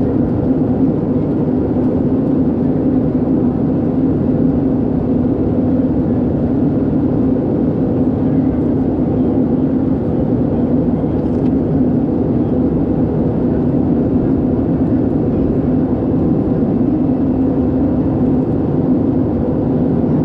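Steady in-flight cabin drone of an Airbus A320-214 heard from a window seat: engine and airflow noise with a constant low hum, unchanging throughout.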